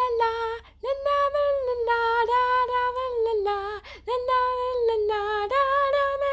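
A high voice singing a wordless tune in long held notes that step up and down in pitch, with short breaks between phrases.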